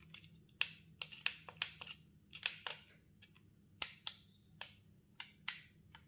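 Irregular sharp crackles and clicks of the clear plastic protective film wrapped on an electric mosquito racket's handle, crinkling as fingers grip and turn it.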